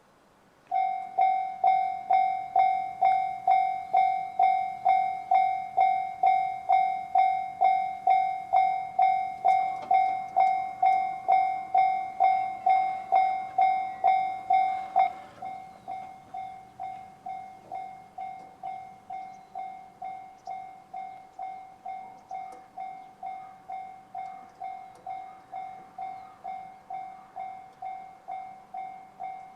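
Japanese level-crossing alarm, the JR standard electronic crossing bell, starting about a second in and ringing about two strikes a second. About halfway through it drops sharply in volume and keeps ringing at the lower level.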